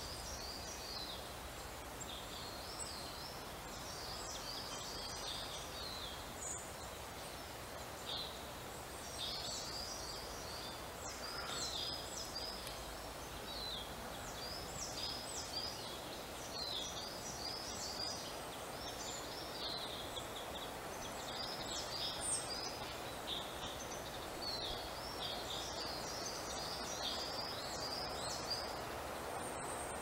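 Small songbirds calling over and over: a dense run of short, high calls throughout, over a steady background hiss.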